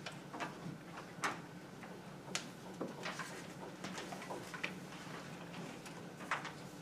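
Irregular light clicks and taps, about a dozen scattered through, the sharpest a little over a second in, around two and a half seconds in and near the end, over a steady low hum of room tone.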